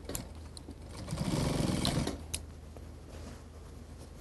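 Industrial single-needle sewing machine stitching a seam through mink fur in one short run of about a second, starting about a second in, with a few sharp clicks around it.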